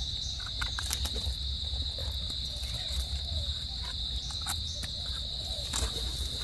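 Steady high-pitched drone of insects in a forest chorus. Over it come small scattered scrapes and clicks of a knife trimming the soil off wild mushroom stems.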